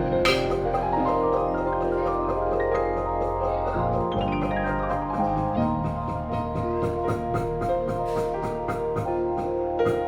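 Background music: an upbeat track of mallet-percussion-like notes over sustained chords and a steady beat.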